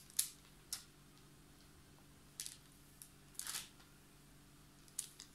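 A drinking glass and hands working dough balls on a parchment-lined baking tray: a handful of short, faint taps and paper crinkles, scattered irregularly.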